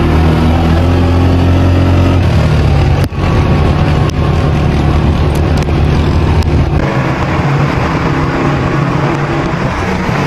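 A vehicle engine running loudly and steadily, its pitch shifting about two seconds in and its low drone fading about seven seconds in. There are a few sharp clicks and a brief drop-out around three seconds in.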